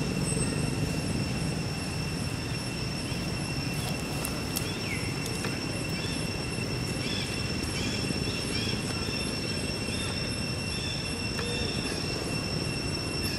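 Outdoor ambience: a steady high-pitched whine with overtones over a low rumble, with a few short high chirps around the middle.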